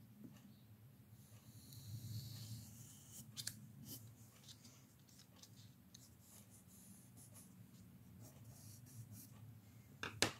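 Pencil strokes lightly scratching across paper as hair is drawn, faint and intermittent. A sharp click near the end as the pencil is set down on the table.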